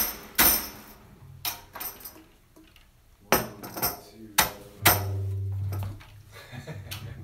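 Sparse, sharp percussive strikes with a ringing, metallic quality, unevenly spaced, and a held low note about five seconds in.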